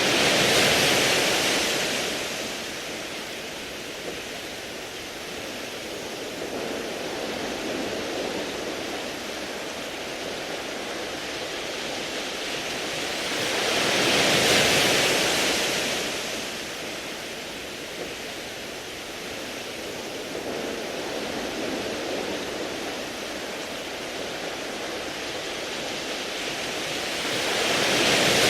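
Sea waves washing onto a beach of smooth round pebbles: a steady hiss of surf that swells into a louder surge three times, at the start, about midway and at the end, roughly fourteen seconds apart.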